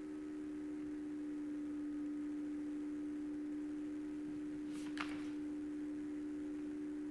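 A steady low electrical hum with a single pitched tone and a few fainter overtones, and one short click about five seconds in.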